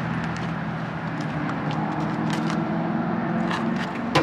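A car engine idling steadily, with a sharp click near the end.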